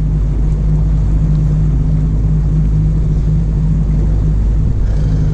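Fishing boat's motor running steadily at trolling speed, a low even drone with the rush of water and air around the hull.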